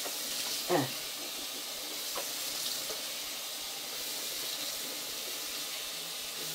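Face washing at a bathroom sink: water running with a steady hiss while wet hands rub lather over the face. A short falling tone sounds just under a second in.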